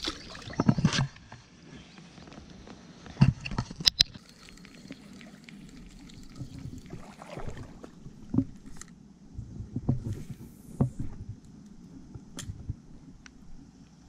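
Wading through a shallow creek: irregular sloshing steps and knocks in the water. They are loudest in the first second and about three to four seconds in.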